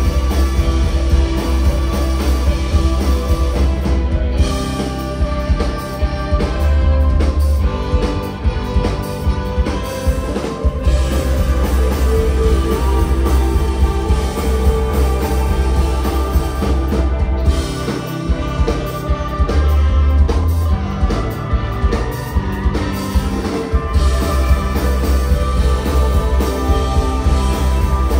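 Live indie rock band playing at full volume: electric guitars, bass guitar and a drum kit, with a trumpet and trombone horn section.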